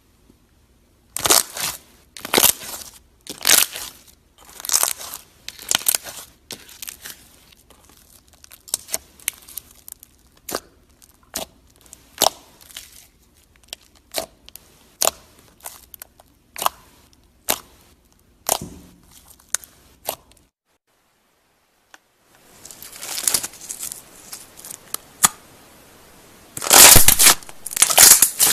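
Slime being pressed and worked, giving runs of short sharp clicks in irregular clusters about once a second. The clicks stop for over a second about two-thirds of the way in, then return louder and denser near the end.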